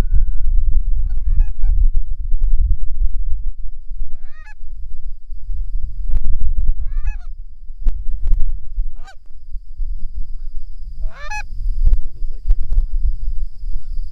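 Goose honking in about five short bursts of several notes each, the loudest near the end, over a heavy low wind rumble on the microphone.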